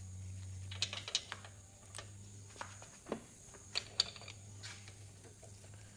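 Light metal clicks and taps, several scattered over the first four seconds, as a valve spring and its parts are handled and fitted back onto a Lycoming O-320 cylinder head, over a steady low hum.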